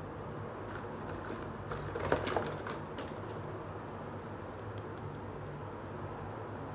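Light clicks and rattles of small plastic toy pieces being picked up and handled, bunched about one to three seconds in, over a steady low background hum.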